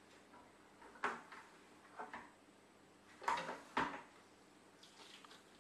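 Four light knocks and clatters of plastic homebrew gear being handled: a siphon tube being fitted to the fermenting bin and lowered into a plastic bucket, ready to rack the beer.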